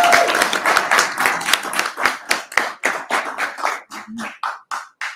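Applause from a small audience, thinning out to one or two people clapping at about four claps a second, then stopping just before the end.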